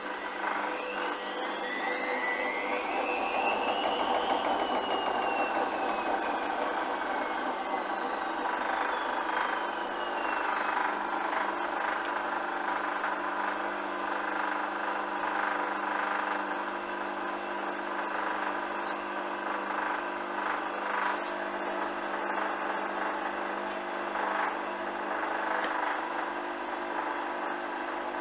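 Washing machine drum motor whining up in pitch for about four seconds, then winding down over the next several seconds. After that comes a steady running hum with a few light knocks from the turning drum.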